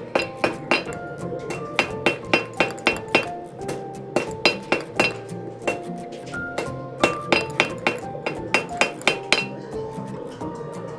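Blacksmith's hammer striking a hot quarter-inch steel rod on the anvil while drawing out a point: runs of quick ringing blows, about three to four a second, broken by short pauses.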